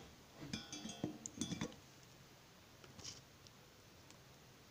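A quick cluster of light metallic clinks and taps about half a second to a second and a half in, then a fainter click around three seconds in. This is the soldering iron and tools being handled and put down once the solder joint on the transistor lead is done.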